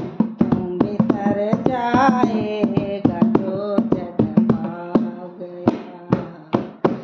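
A woman singing a Hindi bhajan to her own dholak accompaniment, the barrel drum struck in a steady rhythm. Her voice is heard most in the middle, with the drum strokes coming through alone near the end.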